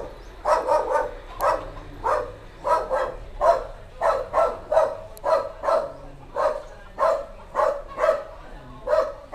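A dog barking over and over, about two barks a second.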